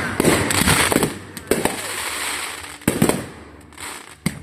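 Fireworks going off: a spell of dense crackling for about the first second, then several separate sharp bangs.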